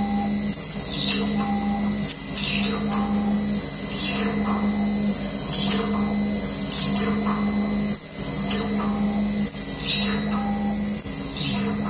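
Automatic pipe drilling machine drilling a row of holes in a metal pipe, about one hole every one and a half seconds: a short, high cutting squeal at each plunge of the drill over the steady hum of the machine.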